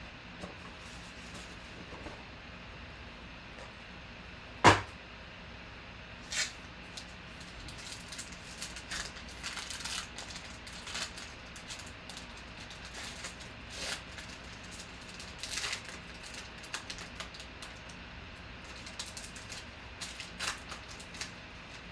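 Foil wrapper of a 2019 Panini XR football card pack being torn open and peeled back, in scattered short crinkles. A single sharp knock about five seconds in is the loudest sound.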